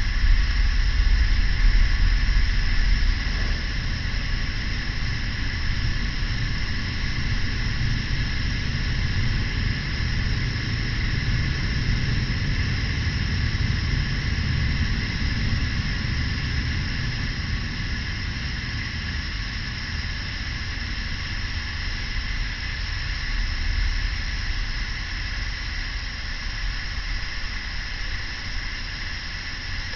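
Campfire burning with a steady hissing rush over a low rumble.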